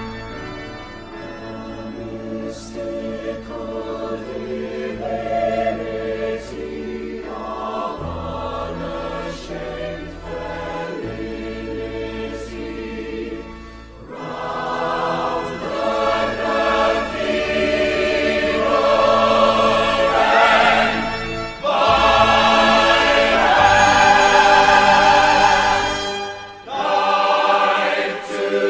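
Musical-theatre ensemble singing together in choral harmony over instrumental accompaniment with held bass notes. The singing grows fuller and louder about halfway through and dips briefly near the end.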